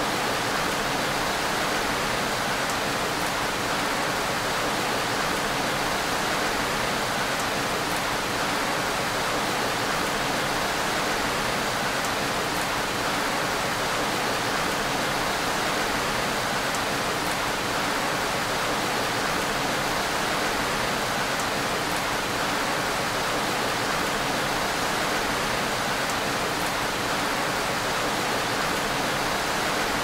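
Steady gentle rain, an even hiss with faint scattered drop ticks.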